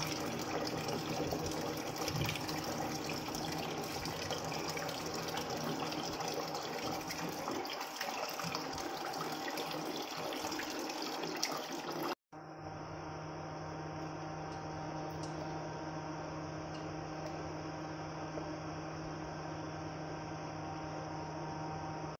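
Hot oil sizzling and crackling in a nonstick frying pan. About twelve seconds in it cuts off suddenly, and a steady low hum follows.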